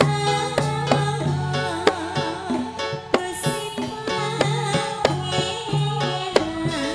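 Amplified Ndolalak folk ensemble music through loudspeakers: sharp drum strikes about twice a second over a low held bass note that keeps returning, with a wavering lead melody above.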